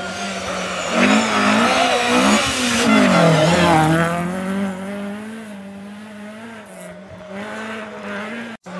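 Historic Ford Escort rally car's engine revving hard as it comes through the corner, the pitch rising and falling several times with the throttle, then the engine note dropping and fading as the car pulls away.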